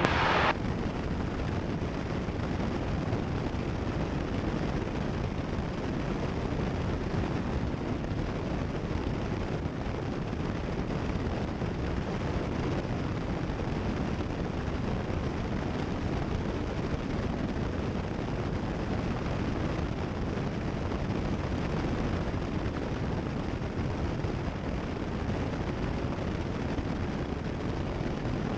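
Cessna 172 Skyhawk's engine and propeller drone with airflow noise in flight, picked up through the headset intercom feed as a steady, even rumble.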